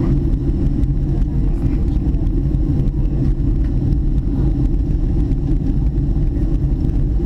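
Steady low rumble of a jet airliner in flight, engine and airflow noise heard from inside the cabin.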